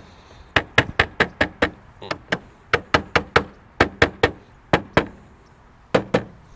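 Plastic trim on a 2021 Toyota Sienna's rear hatch being pushed and knocked by hand, clacking sharply about twenty times in quick, irregular runs. The clacking shows the piece is loose: the whole thing moves under the hand.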